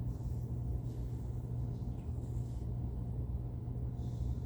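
Steady low hum and rumble of room background noise, with a few faint soft rustles.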